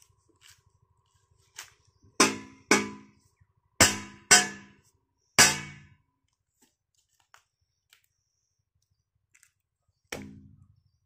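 Sharp metallic knocks of a hand hoe striking the pipe fitting where a pump's suction hose is being fixed in the ground: five loud blows in quick pairs, each with a short ringing tail, then a sixth, weaker one near the end.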